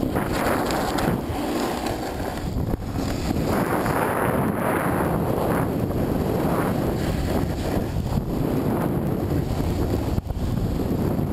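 Wind buffeting the action camera's microphone during a fast run down a groomed piste, with the hiss and scrape of edges carving the snow swelling with each turn.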